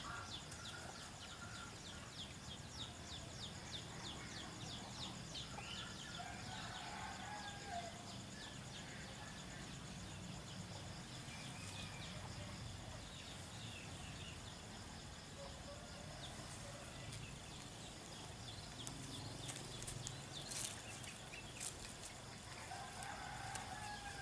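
Outdoor garden ambience: a steady high insect drone with birds chirping, a quick series of chirps in the first few seconds, then scattered short calls and a few sharp clicks.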